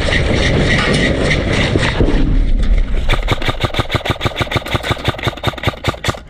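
Airsoft gun firing on full auto: a rapid, even rattle of about ten shots a second that starts about three seconds in, after a stretch of dense rumbling noise.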